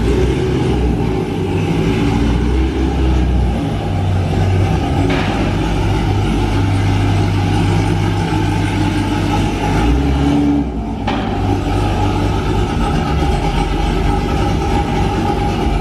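Supercharged LT4 V8 of a C7 Corvette Z06 fitted with a stage 2 cam, running at idle and low speed as the car is driven slowly onto the dyno. The low engine note runs throughout and shifts briefly about two-thirds of the way in.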